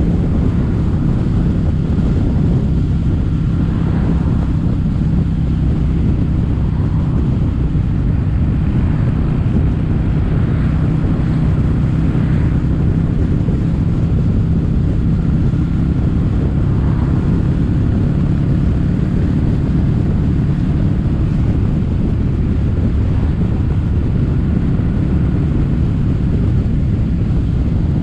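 Kawasaki W800's air-cooled parallel-twin engine running through stainless-steel Cabton-style silencers, a steady exhaust note while the motorcycle cruises at an even speed.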